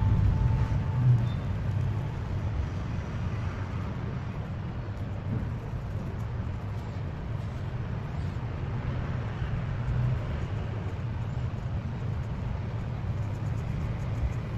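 Steady low rumbling background noise with no music over it.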